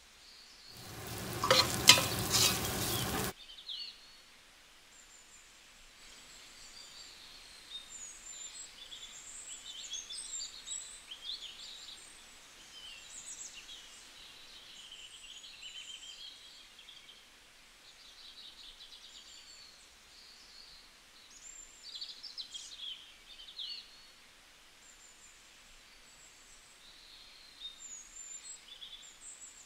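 Chicken pieces sizzling loudly in hot oil in a steel pot as they are stirred, a burst of about two and a half seconds that cuts off suddenly near the start. After it, only faint high chirps in the background.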